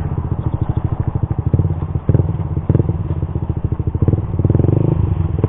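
Suzuki GSX-R150's single-cylinder engine running through an R9 Misano racing exhaust, its exhaust note pulsing rapidly, with a brief dip about two seconds in.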